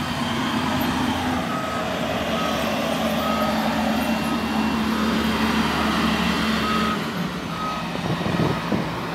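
Diesel engine of a yellow Mitsubishi earthmoving machine running, its pitch shifting a couple of times, while its reversing alarm beeps a little faster than once a second.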